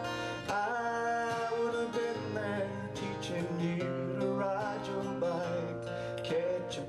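Steel-string acoustic guitar strummed and picked under a man singing a slow country ballad, with held, wavering vocal notes.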